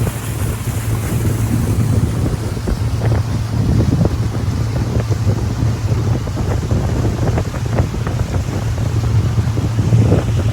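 Pontoon boat's motor running steadily at cruising speed, a constant low hum, with water splashing against the hull in irregular slaps and wind buffeting the microphone.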